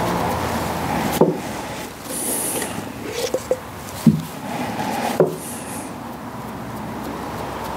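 Gloved hands handling a steel stud: rubbing it clean with a rag, then working an anti-seize brush over it. Soft rubbing, with a few small knocks and clicks.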